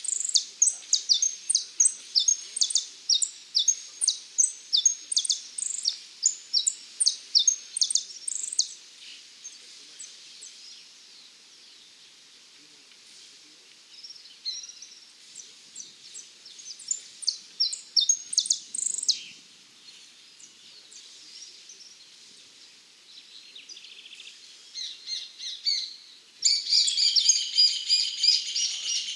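A contest songbird, a 'dorado' (saffron finch), singing: runs of sharp, high chirps repeated a few times a second, a lull, a second run, then a sudden dense warbling song near the end.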